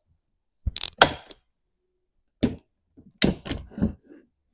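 Sharp clicks and clunks of a Stihl MS 261 chainsaw being handled as its new bar and chain are fitted: two knocks about a second in, another in the middle, and a quick cluster near the end.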